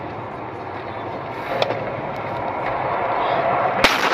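Car driving noise heard from inside the cabin, a steady rush that grows louder, with a sharp click about a second and a half in and a sudden loud bang near the end.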